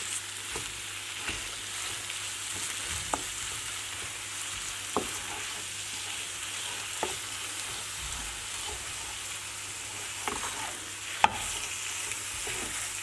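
Grated beetroot and carrot frying in coconut oil in a pan, a steady sizzle, while a utensil stirs the mixture and knocks against the pan now and then, the sharpest knock about eleven seconds in.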